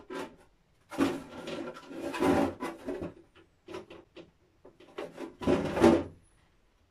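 Clear plastic terrarium lid being handled and worked on, with plastic rubbing, scraping and knocking against the wooden bench in two spells of clatter.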